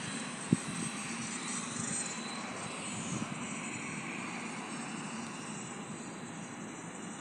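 Steady rushing noise of a distant aircraft engine running, easing off a little in the second half. A single sharp knock about half a second in.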